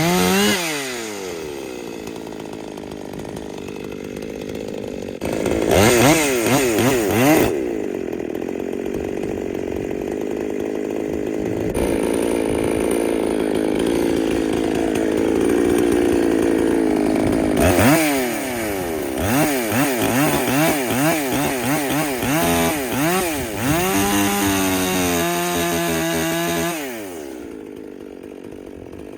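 Husqvarna 257 two-stroke chainsaw cutting firewood: revved hard in quick blips, then held down in the wood with its pitch sagging and steady under load, then blipped again. Near the end the engine drops away to a much lower level.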